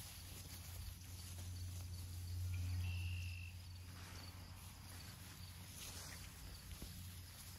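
Outdoor wind rumbling on the microphone, swelling about two to three seconds in, with faint rustling of tall grass as puppies move through it. A thin, steady high tone sounds for about a second midway.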